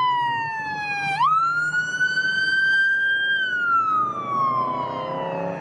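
Police car siren wailing, one electronic tone that slides down, jumps sharply up about a second in, climbs slowly, then falls away slowly toward the end.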